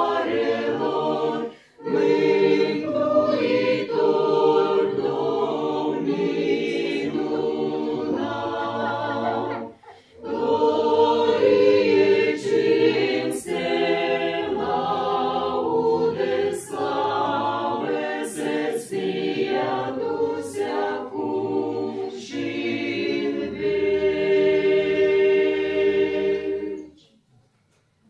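Mixed choir of men's and women's voices singing a hymn a cappella in harmony. There are short breaks between phrases about a second and a half in and about ten seconds in, and the piece ends on a long held chord that stops about a second before the end.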